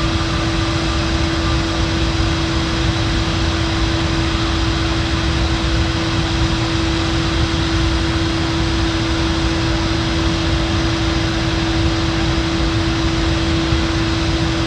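Petrochemical plant machinery running with a steady industrial drone: a constant rush of noise with one clear held hum tone and a few fainter ones.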